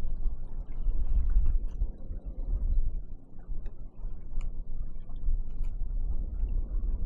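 Uneven low rumble of wind buffeting the microphone, with faint splashes and trickles of shallow water as someone wades.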